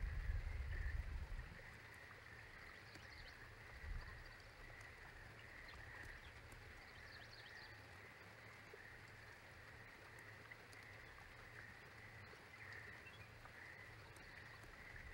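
Faint outdoor ambience: a low rumble for the first second and a half, then a steady, faint, high-pitched drone that pulses about once a second, with a few faint distant bird chirps.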